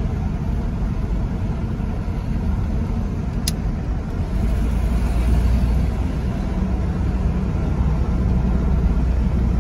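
Steady engine and road rumble heard from inside a moving car's cabin, with one brief sharp tick about three and a half seconds in.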